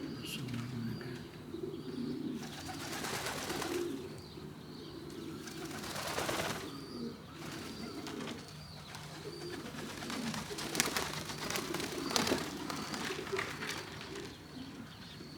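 Pigeons cooing around the loft, a soft rolling low coo that carries on throughout, with a few louder bursts of rustling noise.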